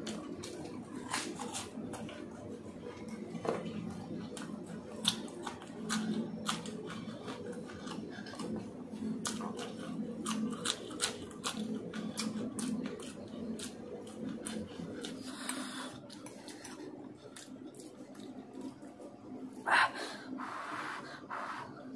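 Close-miked eating: chewing with crisp crunches of a fried snack and raw green chilli, and many short wet mouth clicks and smacks. Near the end a louder burst as masala Maggi noodles are slurped in.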